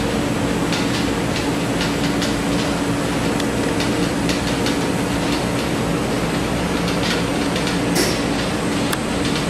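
A steady mechanical rumble with a constant hum and scattered light clicks.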